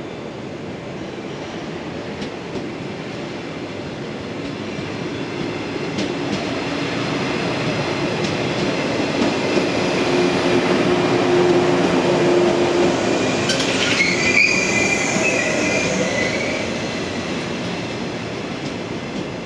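Yellow 115-series electric multiple unit rolling past along the platform, its wheels and running gear rumbling louder as the cars come alongside, then easing off as the last car passes. About two-thirds of the way through, a high squeal from the wheels or brakes sounds for a couple of seconds.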